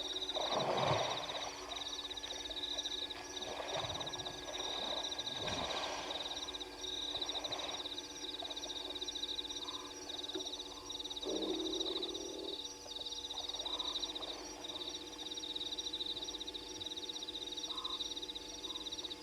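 Frogs calling at a waterhole at night: a steady, high, rapidly pulsing trill, with several louder rough croaking calls in the first eight seconds and a brief low hooting tone about two-thirds of the way in.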